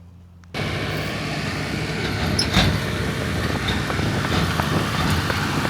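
Heavy vehicle engine running with a steady rattling noise, cutting in abruptly about half a second in; a single sharp knock comes near the middle.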